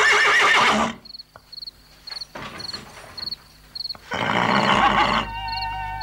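A horse whinnying twice: a loud wavering call at the start and a second, rougher one about four seconds in. Faint high ticks sound about twice a second between the calls, and soft music with held notes comes in near the end.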